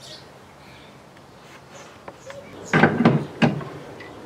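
A few loud metal clunks and knocks in quick succession, a little over halfway through: the long-tail mud motor's metal mounting parts being handled and set into the clamp-on transom bracket.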